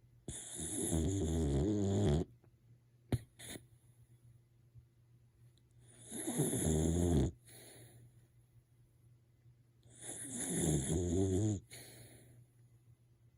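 Sleeping dog snoring: three long snores of about two seconds each, roughly four seconds apart. A short sharp click comes about three seconds in.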